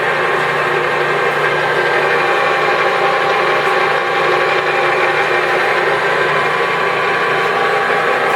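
ENCO 13 x 40 inch bench lathe running under power with its cross feed engaged: a steady whir of motor and gear train with several steady whining tones.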